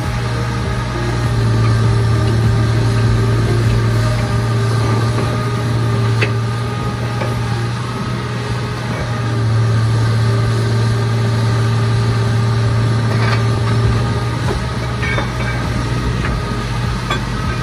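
Diesel engine of a truck-mounted borewell drilling rig running steadily while the drill pipes are hoisted out of the finished bore, its note swelling and easing a couple of times, with a few faint metallic clinks.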